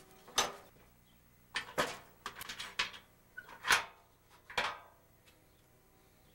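Pliers and small steel nuts clinking against a Coleman propane stove's sheet-metal case and a wooden workbench as the nuts are taken off its bolts. It is a handful of sharp metallic clicks and clatters spread over about four seconds; the loudest come right at the start and again a little before the midpoint.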